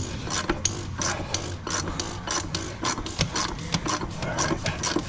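A ratchet wrench clicking in quick, irregular strokes, with rubbing, as the 36 mm socket turns a fuel filter housing cap loose on a DD15 diesel engine.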